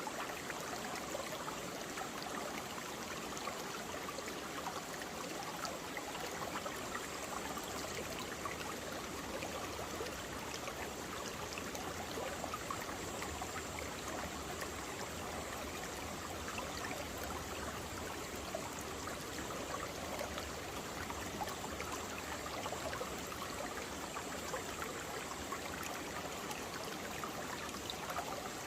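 Mountain stream running over rocks: a steady rush of water with small splashes and trickles.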